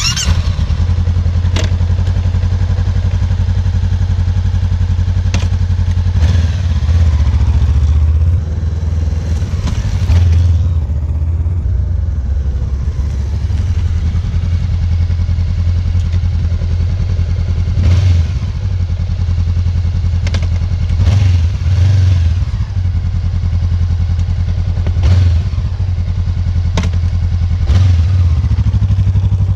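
Honda CB500X parallel-twin engine idling steadily, with a sharp clunk every few seconds as the gearbox is knocked into gear. The owner takes this loud engagement clunk to be normal for the bike, not a fault.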